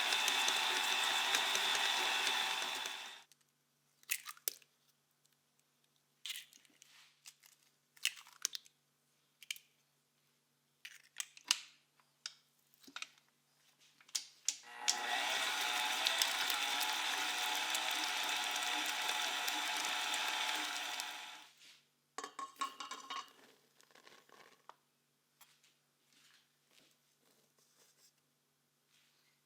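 A small electric kitchen appliance motor runs steadily twice: for about three seconds at the start, then again for about six seconds in the middle. Between and after the runs come light clicks and knocks of kitchen utensils.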